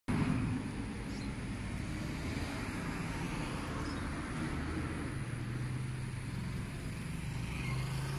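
Steady low motor rumble of the kind a vehicle engine makes, with a low hum that rises slightly in pitch near the end.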